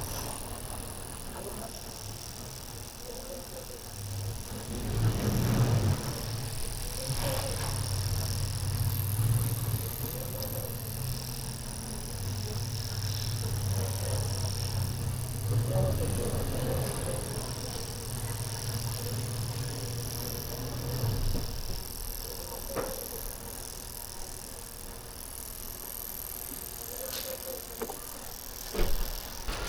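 Toyota Avalon fuel injector being pulsed rapidly by an injector tester, buzzing steadily while it is exercised to clear a clog; the buzzing stops about two-thirds of the way through. A few knocks of handling, the loudest near the end.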